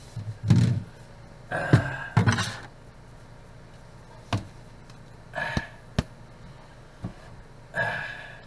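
A plastic colander and a dish being handled in a stainless steel kitchen sink: irregular knocks and clunks, about eight in all, with a sharp click about six seconds in.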